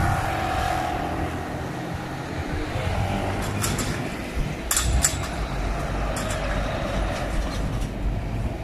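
Pickup truck driving over a railway level crossing: steady engine and tyre noise, with a few sharp clacks about halfway through.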